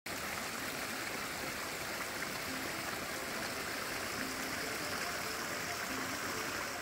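A stream of water running, a steady rushing that drops away at the very end.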